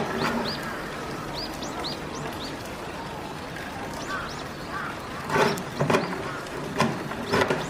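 Small birds chirping in short high calls, over a murmur of people's voices, with a few short loud calls or knocks toward the end.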